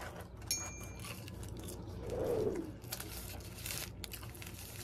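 Paper burger wrapper rustling and crinkling as it is handled, with a brief low sound about two seconds in.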